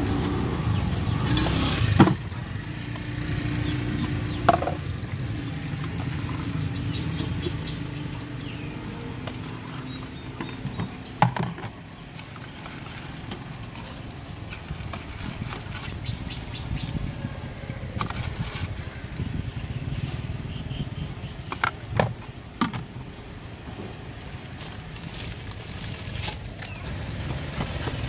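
Steady road traffic rumble, loudest in the first couple of seconds. A few sharp knocks and clinks of a metal spoon and plastic ladle against plastic cups and tubs sound over it as crushed ice is scooped, green jelly noodles are ladled in and the drink is stirred.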